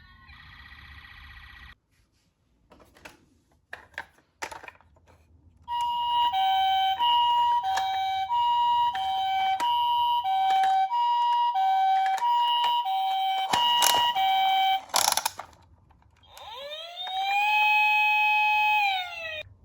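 A toy ambulance minicar's electronic sound unit plays the Japanese two-tone 'pee-poh' ambulance siren, a high and a low note alternating about once a second, after a few clicks. Near the end it switches to a wailing siren that rises, holds and then falls.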